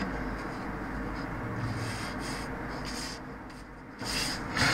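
Sheets of paper rubbing and rustling as a hand handles them and slides them across a table, loudest near the end.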